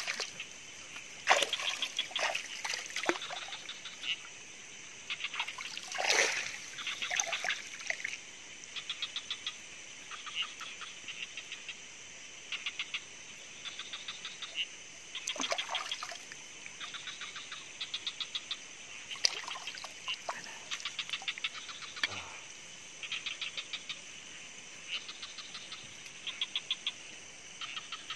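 Night chorus of calling insects and frogs: a steady high drone under short, repeated trains of rapid chirps every second or two, with a few louder close knocks and rustles.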